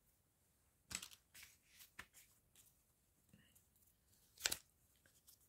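Faint handling sounds of embroidery thread skeins and a paper pattern sheet being moved: a few soft rustles and taps about one and two seconds in, and a louder one about four and a half seconds in.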